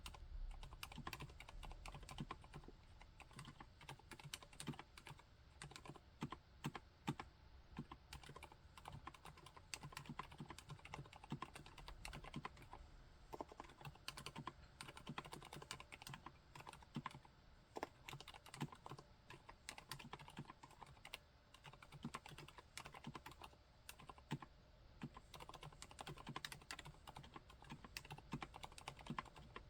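Continuous typing on a MONOKEI Standard mechanical keyboard fitted with Cherry MX Silent Red linear switches: a quiet, steady stream of dampened keystrokes.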